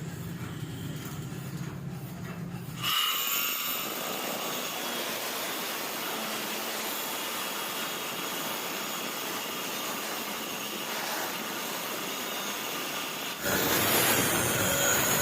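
Angle grinder with a thin cutting disc cutting steel pipe: a steady grinding hiss that changes abruptly about three seconds in and again near the end.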